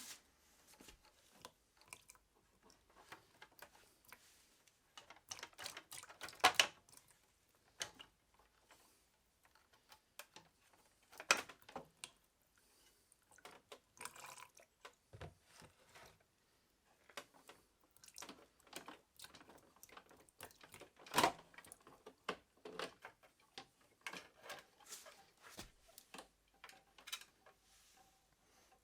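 Hand-work on a motorcycle during radiator removal: scattered light clicks, taps and rattles of parts and tools, with three louder sharp knocks about six, eleven and twenty-one seconds in.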